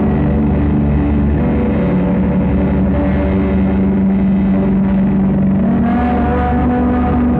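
Experimental drone music: a loud, steady mass of sustained tones over a low hum. A higher tone comes in about six seconds in.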